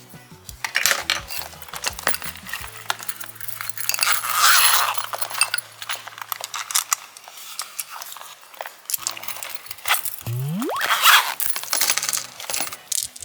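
Slime being worked and mixed, full of rapid small clicks and clinks, with two louder rushing stretches about four seconds in and near the end, and a short rising swoop just before the second. Quiet background music runs underneath.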